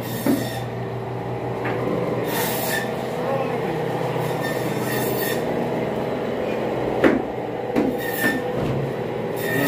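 Butcher shop noise: a steady mechanical hum with a high whine running under it, broken by a few sharp knocks and short hissing scrapes.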